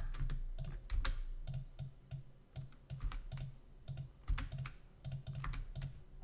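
Computer keyboard keys clicking irregularly, about three clicks a second with small pauses, over a low steady hum.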